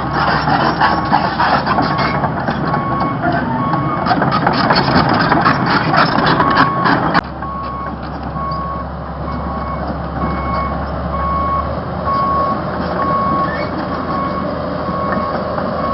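Excavator's backup alarm beeping in an even rhythm, a little over one beep a second, over the noise of its diesel engine. Loud clattering in the first half stops abruptly about seven seconds in, leaving the engine and the beeping.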